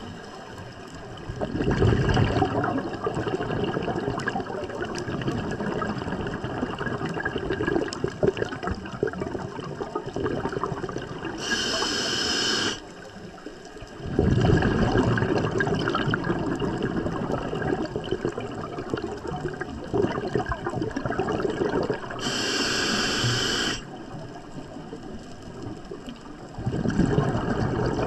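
Scuba diver breathing through a regulator underwater: long stretches of exhaled bubbles, broken twice by a short hiss of inhalation.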